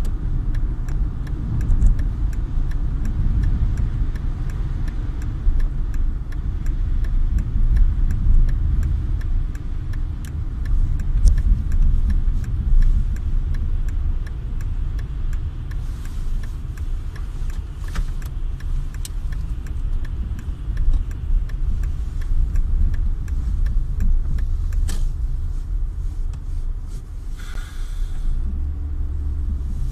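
Car driving on a slushy, snow-covered road, heard inside the cabin: a steady low rumble of engine and tyres with many faint clicks, and a brief hiss about two seconds before the end.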